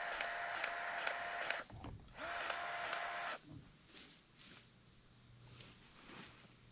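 Battery-powered grease gun whirring as it pumps grease into the bush hog's CV joint. It runs, stops briefly less than two seconds in, runs again for about a second, then cuts off.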